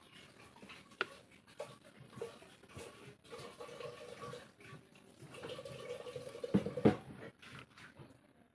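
Cooking oil pouring from a plastic bottle in a thin stream into a metal kadai, trickling and splashing into the pan. Two louder knocks come near the end.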